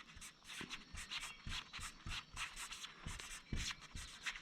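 Faint, quick scratching strokes of someone writing by hand on a metal roofing panel, several strokes a second with short pauses between letters.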